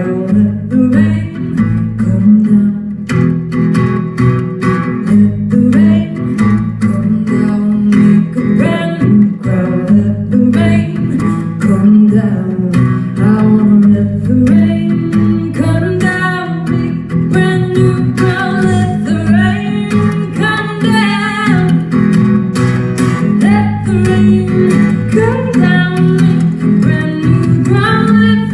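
Live performance of a pop song: acoustic guitar strummed steadily under a woman's sung melody.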